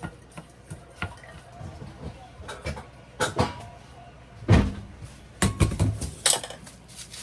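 Kitchen handling sounds: scattered clicks and knocks of things being moved and set down. There is a heavy thump about four and a half seconds in and a quick run of sharp knocks a second later.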